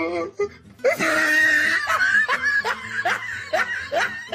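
A person laughing: a drawn-out squealing laugh about a second in, then a run of short rising laugh pulses, about two a second.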